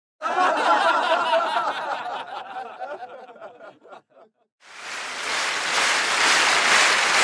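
Laughter that fades out over about four seconds. After a brief gap, an audience's applause swells up.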